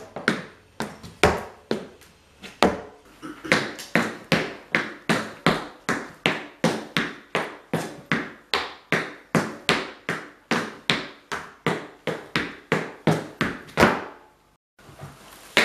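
Irish dance hard shoes striking the floor: a steady rhythm of sharp taps, about three a second. They break off briefly near the end, then start again.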